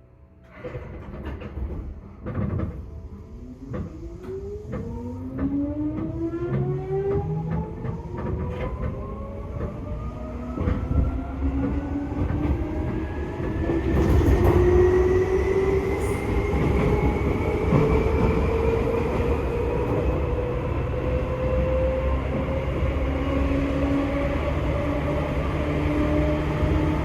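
Seibu 2000 series electric train pulling away, with a few clunks as it starts to move. Its traction motors then whine in several tones that rise steadily in pitch as the train gathers speed, over the rumble of the running gear.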